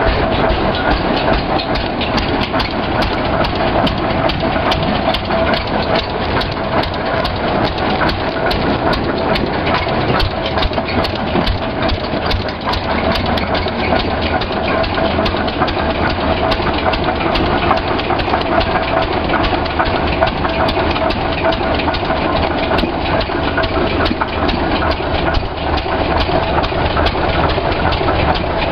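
1911 Rumely OilPull 15-30 Type F tractor's single-cylinder engine running steadily, a continuous train of firing knocks and mechanical clatter.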